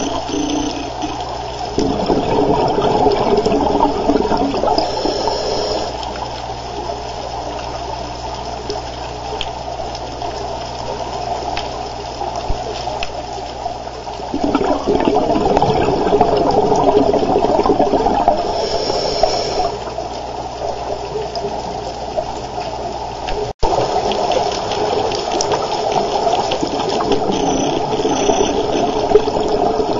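Underwater recording of a scuba diver's regulator breathing: rushing, bubbling exhaust bubbles that swell in surges lasting several seconds, with quieter stretches between, and a brief cut-out about two-thirds through.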